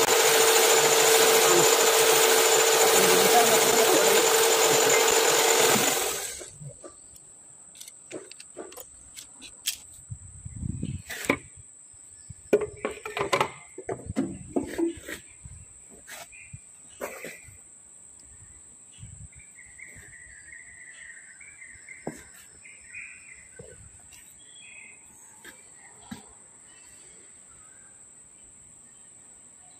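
Power-driven stone hone spinning inside a Toyota 1KD engine's cylinder liner, a loud steady grinding whir with a constant hum that cuts off about six seconds in. After that come scattered knocks and clicks over a faint, steady high tone.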